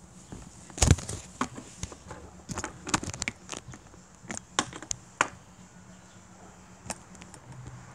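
Irregular clicks, taps and knocks of a handheld camera being handled, with fingers bumping and rubbing close to the microphone. The loudest knock comes about a second in, and a quick run of taps follows around the middle.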